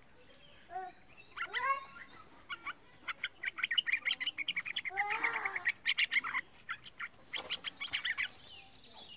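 Young yellow-vented bulbul (trucukan) singing: a few bubbly whistled notes, then a fast run of short chirping notes lasting about four seconds, and a second, shorter run near the end.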